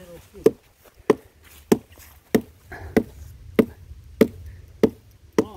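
Steady chopping into a rotting coconut log, nine even blows about two every 1.2 seconds, each a sharp knock with a short ring.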